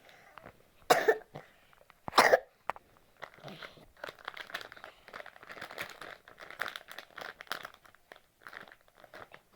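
Plastic packaging crinkling and crackling as a blind box's sealed wrapping is torn open and handled, preceded by two short, louder sounds about a second apart near the start.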